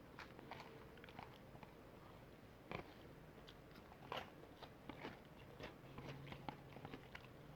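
Close-up chewing and biting of fried chicken, with scattered soft crunches and wet mouth clicks; two louder crunchy bites come about three and four seconds in.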